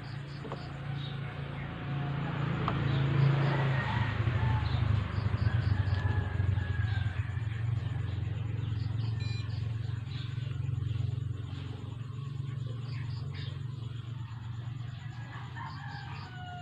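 Low, steady rumble of a nearby motor vehicle engine running. It grows louder over the first few seconds, then eases and holds, with faint short chirps of birds above it.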